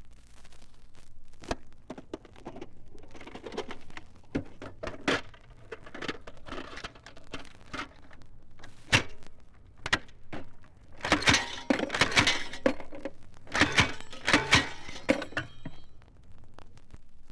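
An irregular clatter of sharp knocks and cracks with rattling in between, growing denser and louder about eleven seconds in.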